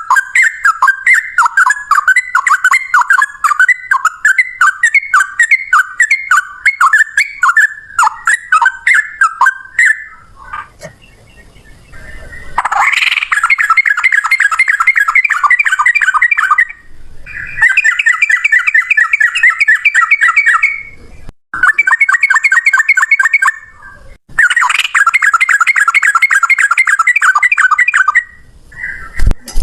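Yellow-vented bulbul (trucukan) song: a fast run of repeated chattering notes, then after a brief pause a series of long rapid trills, each lasting a few seconds, in the bird's 'ropel' style.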